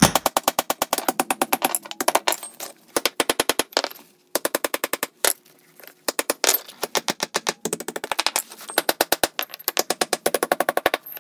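Rapid runs of sharp metal-on-metal strikes, a hammer beating a steel cold chisel into the mortar joints of a brick hearth to crack the joints, about eight to ten blows a second with a few short pauses.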